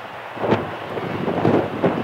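Jet engine rumble from a twin-engine widebody airliner on the runway, broken by several gusts of wind buffeting the microphone. The first and loudest gust comes about half a second in, and two more follow near the end.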